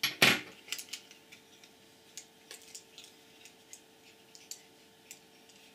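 Light clicks and taps of a small electronic module and its metal bracket being handled by hand, with one sharper knock just after the start and scattered faint ticks after it.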